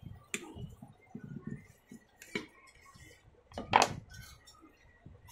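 A metal screwdriver and hands clinking and knocking against a motor's steel end cover and its centrifugal switch plate while the switch is being unscrewed. There are a few sharp clinks, the loudest nearly four seconds in.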